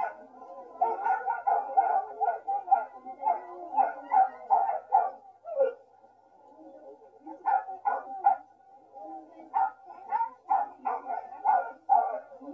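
A harnessed team of sled huskies barking and yapping rapidly, several barks a second. They pause briefly about halfway and then start again, the excited barking of a team waiting to set off. It is heard through a television speaker, thin and without bass.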